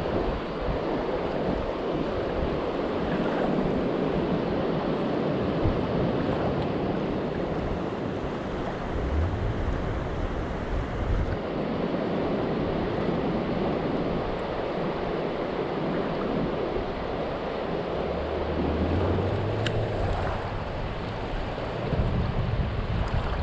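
River water rushing steadily over rocks, with wind buffeting the microphone now and then as a low rumble.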